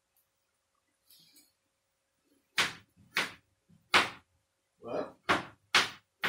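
Knife chopping on a cutting board: about seven sharp knocks, starting a couple of seconds in and coming closer together toward the end.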